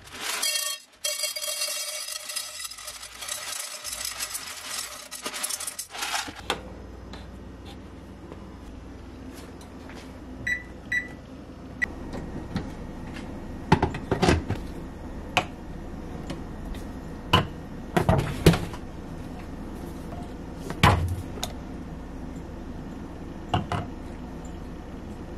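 Kitchen prep sounds: a steady rushing hiss for the first few seconds, two short electronic appliance beeps, then scattered knocks and clatter of things being set down on a countertop.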